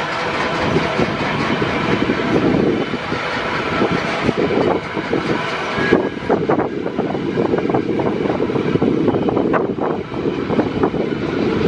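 Freight train flat wagons loaded with steel rolling past: a steady rumble of steel wheels on the rails with frequent clicks and clanks, more of them after about six seconds.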